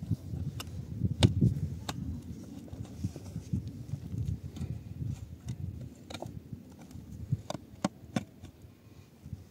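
Digging in dry, stony soil: a short-handled metal shovel scraping and scooping earth out of a pit, with several sharp knocks of metal against stone.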